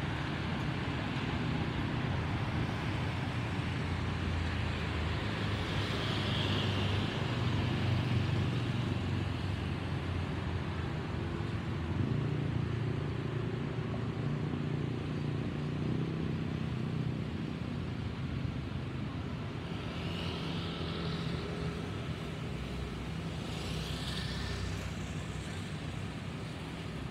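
Distant rumble of a departing Airbus A320-216's CFM56 jet engines, slowly fading as the airliner climbs away, over a steady wash of road traffic noise.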